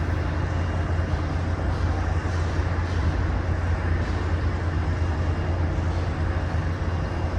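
A steady low rumble with an even hiss over it, unchanging throughout.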